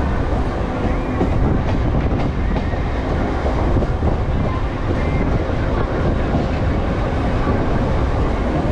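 Mumbai suburban local electric train running at speed, heard from its open doorway: a steady rumble of wheels on rail with a few sharp clicks now and then as the wheels pass over rail joints.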